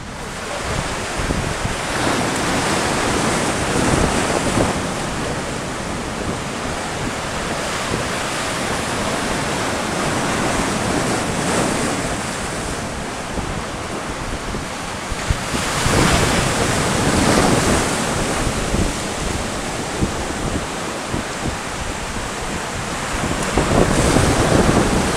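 Heavy sea surf breaking and washing over coastal rocks, a steady roar of water that swells louder several times as bigger waves break. Wind buffets the microphone throughout.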